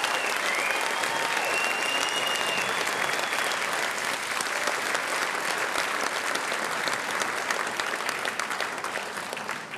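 A large audience applauding, a dense patter of many hands clapping that dies away near the end.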